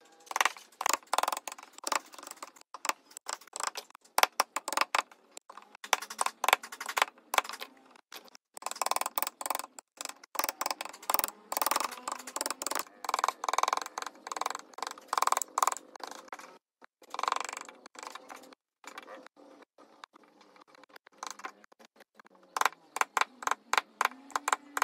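Rapid, irregular knocks, clicks and short scrapes of hand work on wood.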